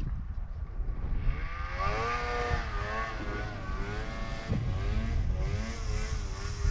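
Snowmobile engine rising in pitch about a second in, then holding a wavering whine as the throttle changes, over a steady low rumble.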